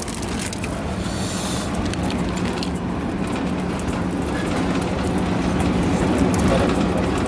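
Steady rumble and hum inside a sleeper car of a train, with a short rustle of a plastic bag about a second in.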